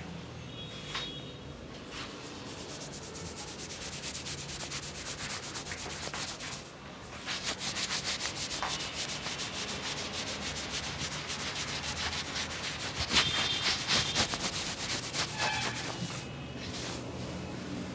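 Fingers rubbing and scrunching through long hair and over the scalp in a head massage: a dense, fast, crackling rustle that grows louder about seven seconds in.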